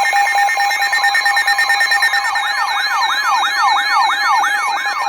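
Emergency alert tones: a steady electronic tone under layered siren-like sweeps that rise and fall about three times a second, with a second set of sweeps joining about two seconds in.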